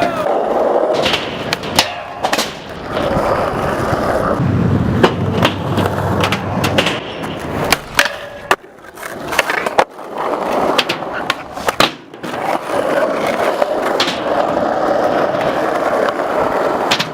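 Skateboard wheels rolling steadily, broken by many sharp clacks of the board hitting the ground as tricks are popped and landed.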